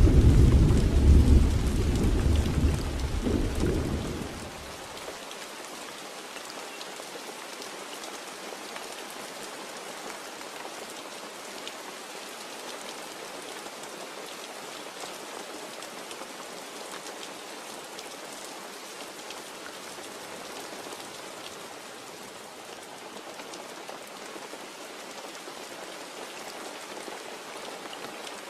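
Thunder rumbling and dying away over the first four or so seconds, then steady heavy rain falling and pattering on surfaces.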